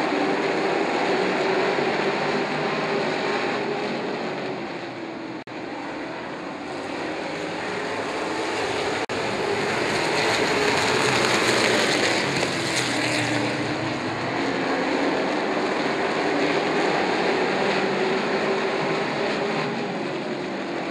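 A pack of short-track race trucks running hard around an oval, their engine pitch rising and falling through the laps. The sound swells louder between about ten and thirteen seconds in as the trucks pass close, and it cuts out briefly twice.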